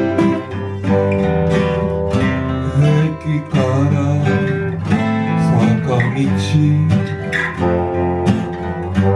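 A band playing an instrumental passage led by strummed guitar chords, with sustained notes over a steady low bass line.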